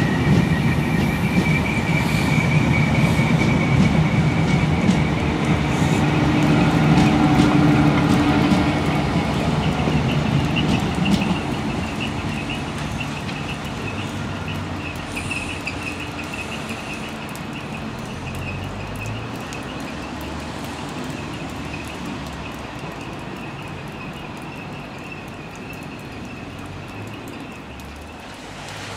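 Mark 3 passenger coaches rolling past on the rails with a high, steady wheel squeal. The low rumble dies away after about ten seconds as the train draws off, and the squeal fades more slowly, almost gone near the end.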